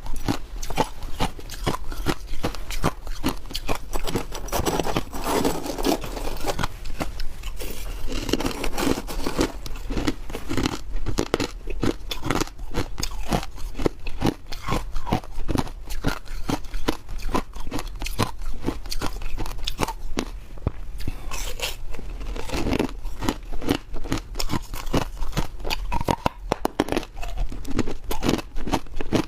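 Ice being bitten and chewed close to the microphone: a fast, dense run of sharp crunches and cracks as the ice breaks between the teeth.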